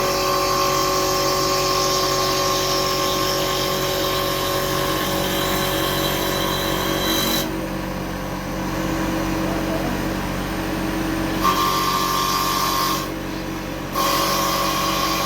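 CNC woodturning machine running with a steady whine and a high cutting hiss; the hiss drops out abruptly about halfway through, returns, then drops out again briefly near the end.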